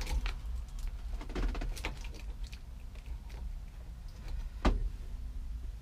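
Small clicks and rattles of a Chevy C10 ignition lock cylinder and key being wiggled loose in the steering column, with a sharper knock near the end.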